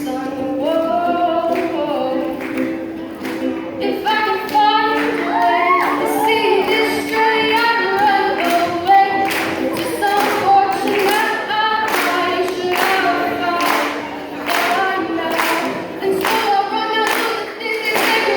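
Live singing of a pop-rock song with instrumental backing and a steady beat that grows denser about four seconds in.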